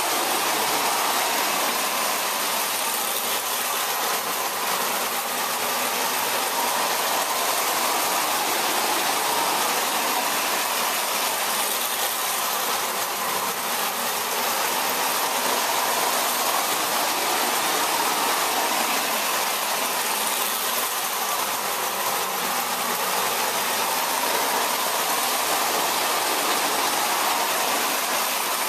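Several toy electric trains running around loops of metal track, a steady whir and rumble of their motors and wheels on the rails.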